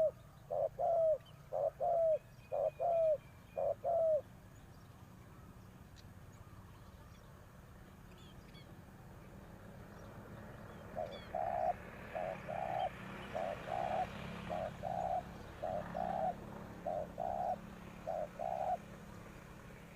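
Spotted doves cooing. A loud series of paired coos, each note dropping at its end, runs through the first four seconds. After a pause, a fainter run of shorter, flatter coos goes from about eleven seconds until shortly before the end.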